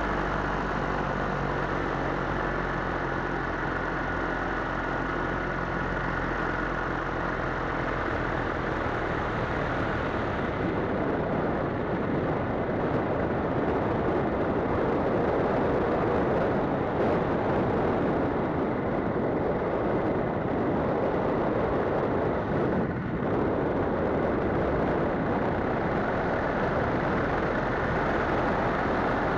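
Paramotor engine and propeller running steadily in flight. For the first several seconds there is an even engine tone; from about ten seconds in it blurs into a steady rushing noise.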